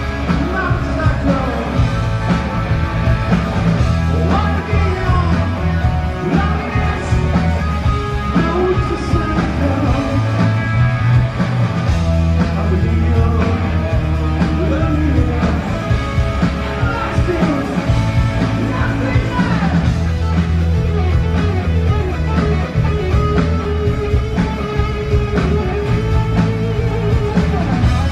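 A rock band playing live: loud electric guitar over bass and drums, with singing, heard from the audience.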